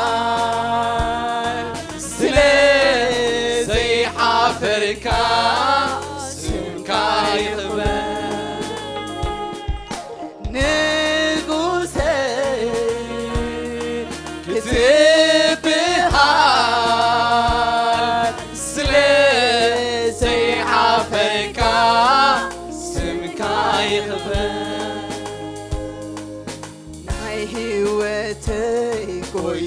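Gospel worship song sung by a church choir over instrumental backing with a steady beat, with a brief break in the sound about ten seconds in.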